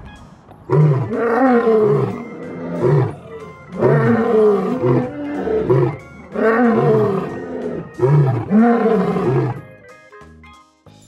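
Male lion roaring in about four long bouts, each a run of low calls that rise and fall in pitch. Near the end the roaring stops and a short piece of music begins.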